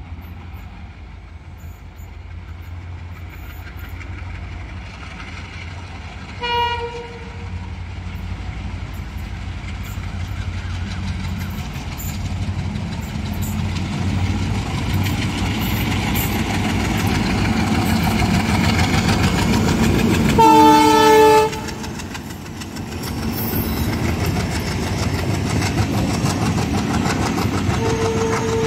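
Twin WDM-3A diesel locomotives hauling an express train, their engine rumble building as they approach, with a short horn blast about six and a half seconds in and a longer, louder horn blast about twenty seconds in. The coaches then roll past with wheels clicking over the rail joints, and a brief horn sounds near the end.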